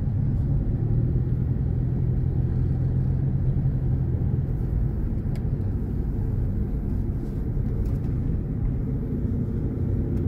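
Car interior noise while driving: the engine's steady low hum and road rumble heard from inside the cabin.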